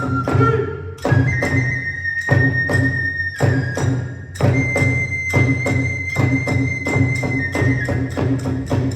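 Kagura ensemble playing: a bamboo transverse flute holds long high notes over steady drum beats and clashing hand cymbals, about three strokes a second. The beat breaks off briefly about a second in and again after four seconds.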